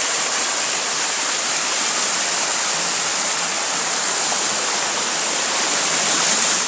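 Flowing river water rushing, a steady hissing noise that holds even throughout.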